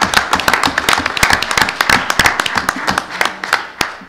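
A roomful of people applauding, dense overlapping clapping that stops shortly before the end.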